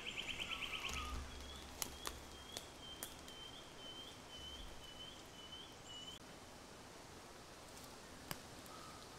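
Faint high-pitched animal calls: a fast trill for about a second, then a thin high note with small chirps repeating a few times a second, lasting about five seconds. A few sharp clicks are heard around two to three seconds in and once more near the end.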